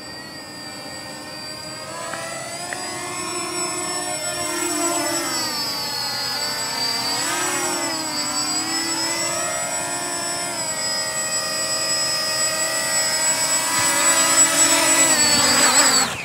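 Walkera Furious 320 quadcopter's brushless motors and propellers whining in flight, a stack of tones sliding up and down in pitch as it manoeuvres. It grows louder as the drone comes down, and near the end the pitch drops away sharply as the motors spin down after it lands.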